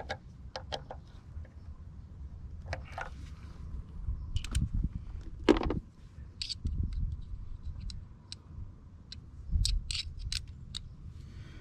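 Screwdriver and small metal parts clicking and scraping as screws are worked on the rear electric blind motor, in scattered light clicks with a sharper click about five and a half seconds in. The screw heads are worn, with one already stripped.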